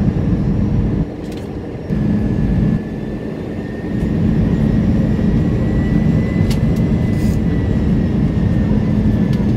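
Airbus A320 cabin noise on descent: the steady rush of airflow and drone of the engines, heard from inside the cabin, with a low hum beneath. The level dips twice in the first four seconds, then holds steady.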